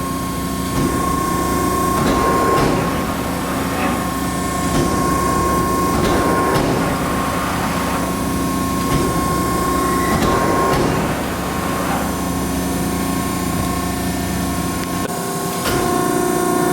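Hydraulic press brake running: its 20 hp motor and hydraulic pump hum steadily with a constant whine, with swells in the noise every couple of seconds. The low rumble cuts out about 15 seconds in.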